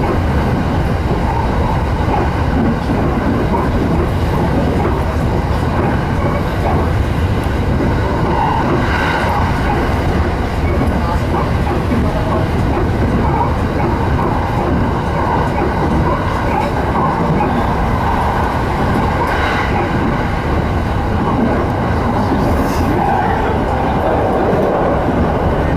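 Electric commuter train running along the line, heard from inside the car: a steady rumble of wheels on rails and running gear, with two brief higher-pitched swells about a third and three quarters of the way through.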